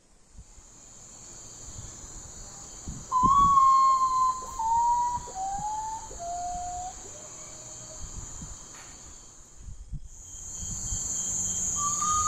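Common potoo (urutau) singing its mournful song: about five pure whistled notes, the first one long, each lower than the last, starting about three seconds in. The song begins again near the end. Behind it runs a steady high insect trill, which breaks off briefly about ten seconds in.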